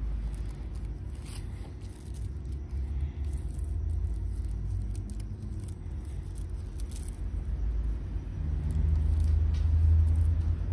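A low steady rumble that swells louder near the end, with faint light scrapes and rustles of a mini kite's plastic and stick being handled.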